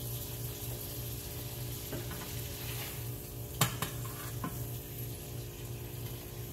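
Turkey burgers sizzling in a frying pan, a steady hiss over a steady low hum. A sharp clink about three and a half seconds in, followed by a couple of softer ones.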